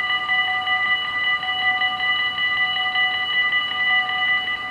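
Dutch level-crossing warning bells ringing rapidly and continuously, several bells overlapping at a few fixed pitches with many strikes a second, while the half-barriers lower to warn of an approaching train.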